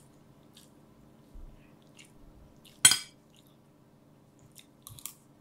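A metal spoon clinks sharply once against a ceramic plate about three seconds in, with faint small clicks and scrapes of eating around it.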